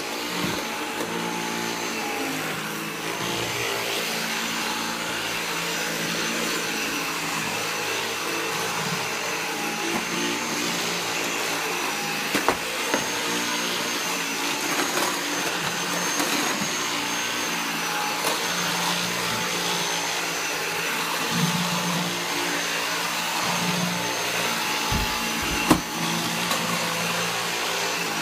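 Cordless stick vacuum cleaner running steadily with a high motor whine as it is pushed over a rug and a wooden floor. A couple of sharp knocks come about halfway through and near the end.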